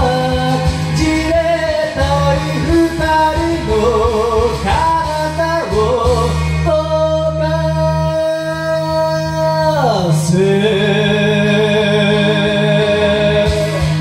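A singer sings along to a karaoke backing track, then holds a long note with vibrato that slides down about ten seconds in. The instrumental backing carries on alone after that.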